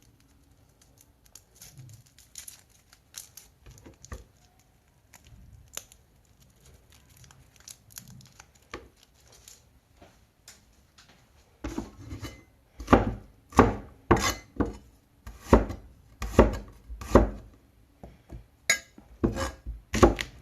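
A kitchen knife chopping scallion, ginger and garlic on a cutting board. The first half holds only quiet handling rustles and light taps. From about halfway a steady run of firm chops sets in, roughly two a second.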